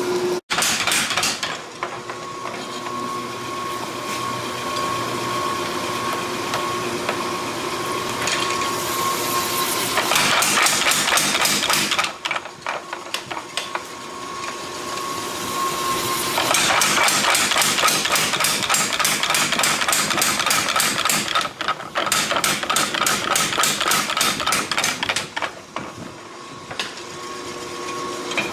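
Rapid, evenly spaced hammer strikes on metal in long runs, with short pauses between them, over a steady hum.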